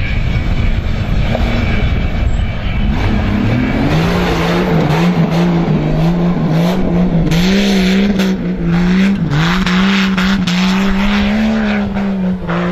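Off-road Jeep Cherokee's engine: a low rumble for the first few seconds, then the engine note climbs and is held, dipping and rising again and again as the throttle is worked on loose dirt.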